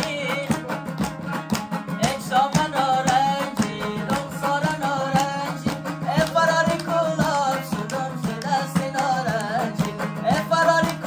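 A young man singing a folk song while strumming a dambura, the long-necked two-stringed Afghan lute, with people clapping along to the beat.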